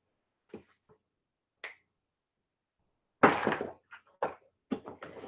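Objects being handled and moved about: a few faint taps, then about three seconds in a louder rustle, followed by several short knocks and clicks.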